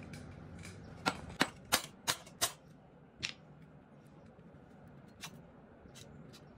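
Sharp metal clicks and knocks, about half a dozen in the first half and one more near the end, as the cylinder barrel of a 110cc engine is worked loose and lifted along its studs off the piston.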